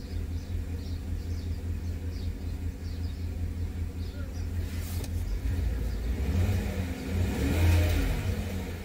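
A 2019 GMC Yukon's V8 engine running steadily, then revved once about six seconds in, the pitch rising and falling back. Cylinder 5 is misfiring as it runs, which the mechanic thinks could come from the lifters or the injectors.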